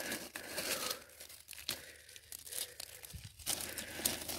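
A hand scraping and picking through loose gravel and quartz crystal fragments, the stones crunching and clicking against each other irregularly.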